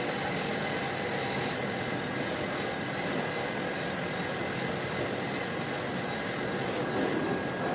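Brake rotor resurfacing lathe running steadily, with the brake rotor spinning on its arbor.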